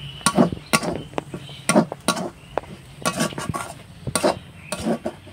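Metal spoon clinking and scraping against a cooking pot while stirring boiled mung dal, about a dozen irregular strikes.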